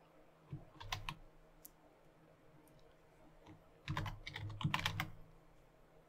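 Computer keyboard being typed on: a few keystrokes about half a second to a second in, then a quick run of keystrokes around four to five seconds in as a short word is typed.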